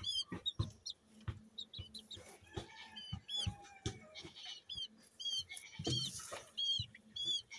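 Young Silkie Serama chickens peeping: many short, high, arching peeps repeated in little clusters all through, over soft scratching and rustling in straw bedding.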